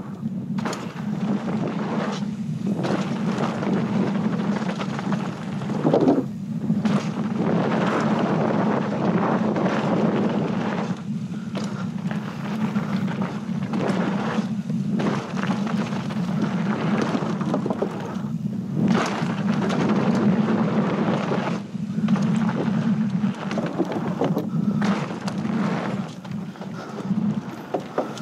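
Mountain bike tyres rolling fast over a packed dirt trail, with steady wind rumble on the microphone and the rattle of the bike over rough ground. The rolling noise drops out briefly several times, and there is a loud thump about six seconds in.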